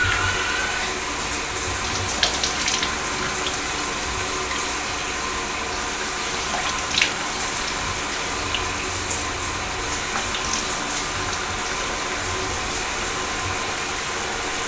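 Bathroom sink faucet running steadily into the basin, with a few small splashes as water is scooped up and splashed onto a face.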